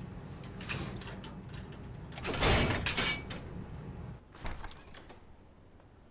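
Steel watertight door on a ship being unlatched and opened by hand: a few clicks of its lever latches, then a loud metal clatter about two and a half seconds in, then a few more clicks. A low steady hum underneath drops away about four seconds in.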